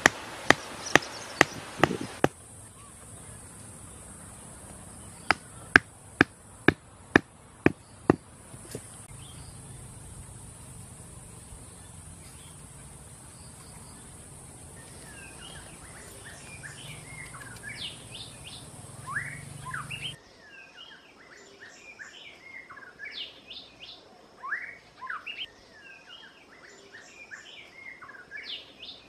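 Sharp knocks as bamboo stakes are hammered into the ground, a quick run of strikes and then about eight more a few seconds later. From about halfway on, birds chirp repeatedly.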